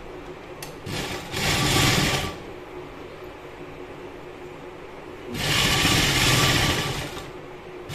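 Sewing machine stitching in two runs. The first run lasts about a second, starting just after a second in. The second lasts about two seconds, in the second half.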